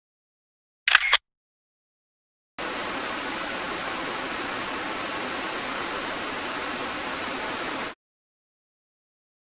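A camera shutter clicking in a quick burst about a second in, then, after a pause, a steady hiss of noise like static for about five seconds before it cuts off.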